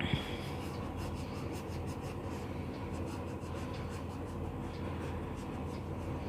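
Colouring strokes on a paper worksheet: quick back-and-forth scratching as a picture is filled in with colour, over a steady low hum.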